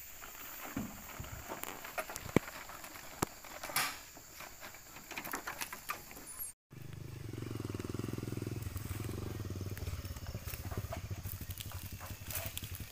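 Scattered light knocks and clicks, then, after an abrupt cut, a steady low engine hum.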